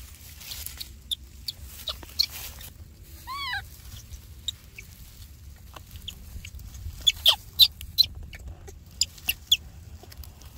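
A baby monkey gives one short arching cry, rising then falling, about three seconds in. Short sharp clicks and squeaks come scattered throughout, loudest around seven to eight seconds in.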